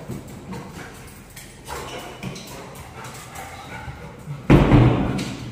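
A Labrador retriever making excited dog sounds while greeting its returning owner at the door, with a loud, deep thump or bark about four and a half seconds in.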